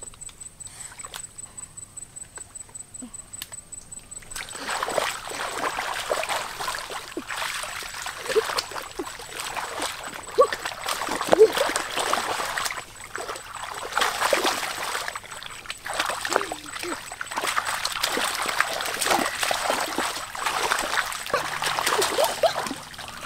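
Repeated splashing and sloshing in water, starting about four seconds in and going on in irregular strokes. Before that, a quieter quick regular ticking, about four a second.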